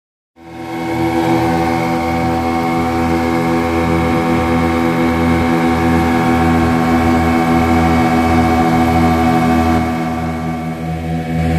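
Boat engine running steadily. It cuts in abruptly about half a second in, with a low pulsing throb, and eases briefly near the end before picking back up.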